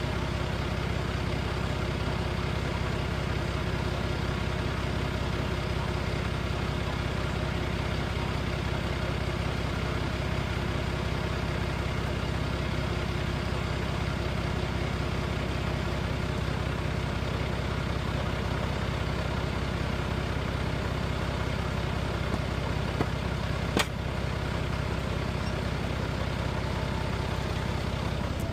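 A concrete mixer truck's diesel engine idling steadily, with one sharp click near the end.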